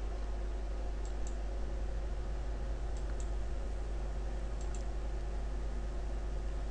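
Three faint computer mouse clicks, each a quick double tick, about a second in, at about three seconds and near five seconds. Under them runs a steady low electrical hum.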